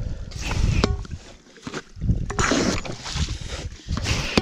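Hand suction pump for mud shrimp being worked in a flooded burrow: wet sucking and squelching strokes of mud and water, in two main bursts with a short squeak near the first.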